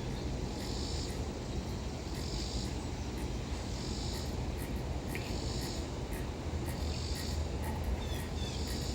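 Cicadas calling in a chorus, a high buzz that swells in pulses about once every second and a quarter, over a low steady rumble.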